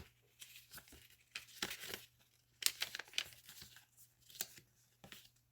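Paper rustling and crinkling in irregular bursts as a junk journal's paper pages, envelope and small paper booklet are handled and shifted about.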